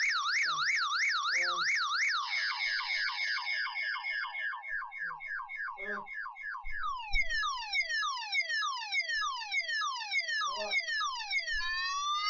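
Electronic fire alarm siren cycling through tones: a fast up-and-down warble for about two seconds, then a rapid run of falling sweeps, then rising sweeps near the end.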